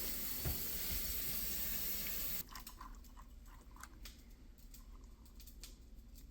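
Water running from a tap into a bowl of broken-up instant noodles, a steady hiss that cuts off about two and a half seconds in, followed by a few faint clicks.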